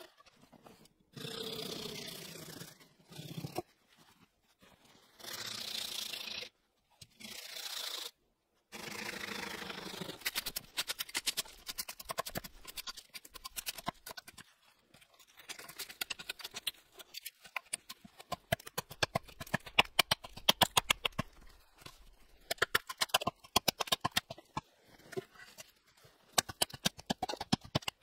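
Hatchet strikes on a wooden pole stood upright on a chopping stump: a quick run of light, sharp chops, several a second, loudest in the second half. Before it, near the start, come a few longer rasping strokes on wood.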